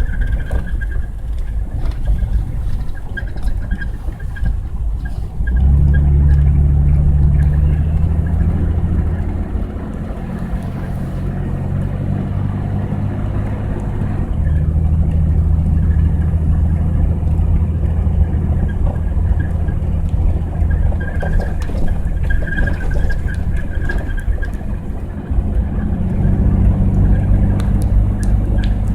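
Honda Passport SUV driving on snowy roads: a low rumble with the engine note, which comes up strongly about five seconds in and steps to a different pitch a few times as the load or gear changes.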